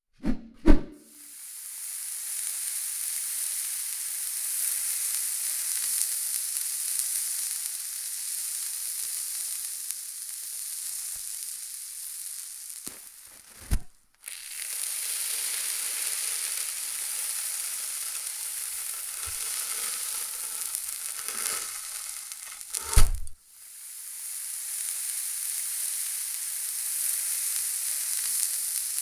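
Paintbrush bristles burning with a steady sizzling hiss, in three stretches, each begun by a sudden sharp thump: about a second in, about halfway, and about three quarters of the way through.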